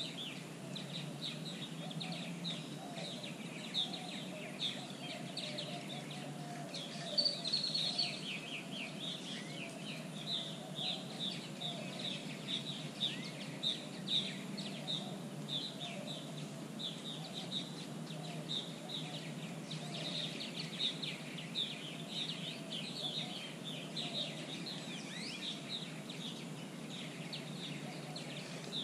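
Birds chirping in a dense, continuous chatter of short, high calls, over a steady low hum of background noise.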